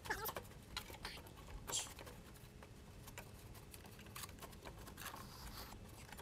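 Faint, scattered clicks, taps and rubbing as hands wiggle a plastic air intake tube and its rubber couplers loose under a car's hood, with a short scrape a little under two seconds in.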